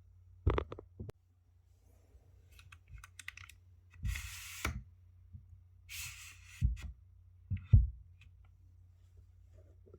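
Unboxing handling noises: a scattered series of knocks and clicks, the loudest about half a second in and near eight seconds, with two short rustling sounds about four and six seconds in.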